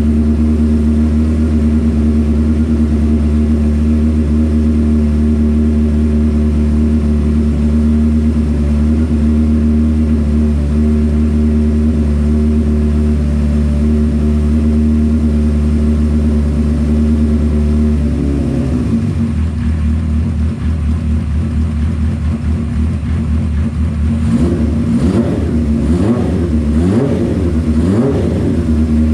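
Honda CB550's air-cooled inline-four engine running on the stand after a top-end gasket replacement, warming up. It idles steadily, the note drops lower and rougher about two-thirds of the way in, and near the end the throttle is blipped several times, the revs rising and falling.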